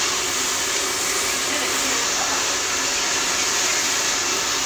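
Steady rush of water from a salon shampoo basin's hand sprayer, rinsing hair and splashing into the basin.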